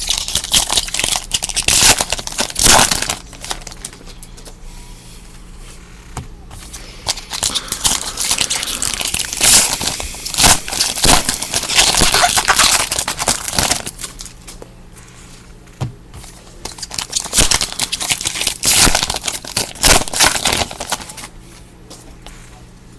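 Trading card pack wrappers being torn open and crinkled by hand, in three loud spells of crackling and crinkling with quieter pauses between.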